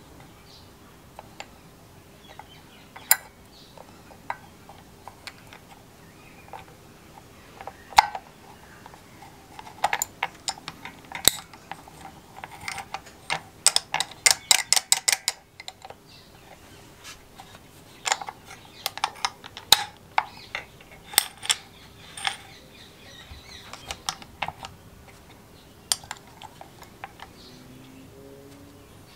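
Small metal and plastic parts of a two-stroke engine's recoil starter being handled and fitted by hand: scattered clicks and taps, with a quick run of evenly spaced clicks about halfway through.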